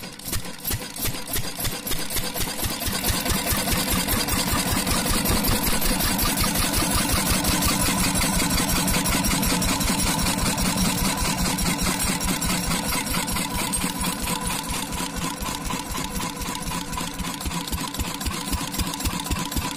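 Kirloskar single-cylinder diesel engine running with an even, rhythmic knock. It grows louder over the first few seconds as it comes up to speed after being started, then runs steadily.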